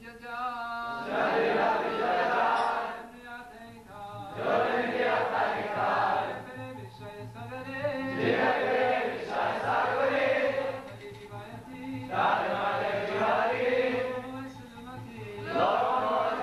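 A group of voices chanting a devotional kirtan in loud sung phrases every few seconds, with quieter stretches between them and a steady beat underneath.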